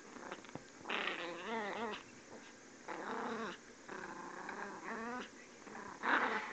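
Chihuahua puppy's high-pitched play growls while tugging on a plush toy: four wavering growls, the loudest near the end.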